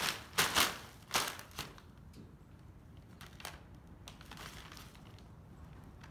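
Plastic bag crinkling and rustling as a cat paws at it with another cat moving inside it: a few loud crackly bursts in the first second and a half, then fainter rustles.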